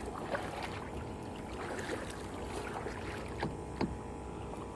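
Small knocks and water sounds around a kayak on the water, with a few sharp clicks: a couple near the start and two close together near the end.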